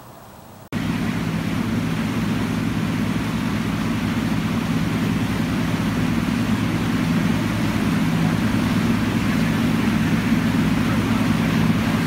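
Boat engine running steadily at speed, a constant low hum over the hiss of rushing water. It cuts in abruptly just under a second in.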